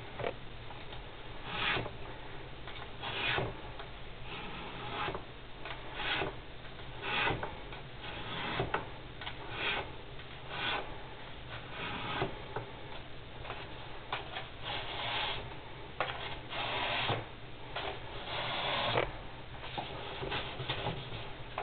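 Strips of abrasive sanding film pulled over the felt of grand piano hammers to reshape them: a long series of short rasping strokes, about one a second.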